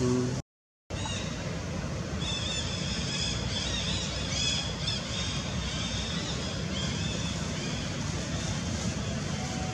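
Outdoor ambience: a steady low rumble with a run of high, chirping calls from about two to five seconds in. The sound cuts out briefly just after the start.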